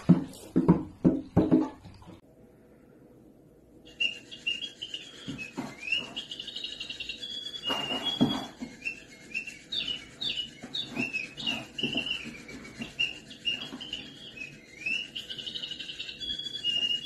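High, bird-like chirping and twittering that runs on without a break, with soft knocks and thumps beneath it. A few louder knocks come in the first two seconds, followed by a short near-quiet gap before the chirping starts.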